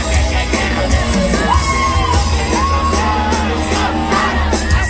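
Live pop song played loud over a concert PA, heard from within the audience: a heavy bass beat under held, gliding sung notes, with yells.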